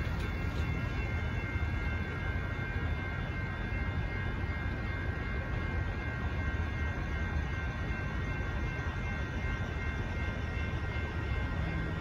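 Railroad crossing warning bells ringing steadily over a low rumble, the crossing activated for an approaching train.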